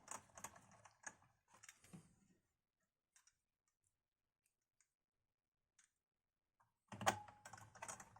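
Faint clicks and taps of a small screwdriver and plastic parts as screws are driven back into a laptop's drive bay, stopping for a few seconds in the middle before starting again.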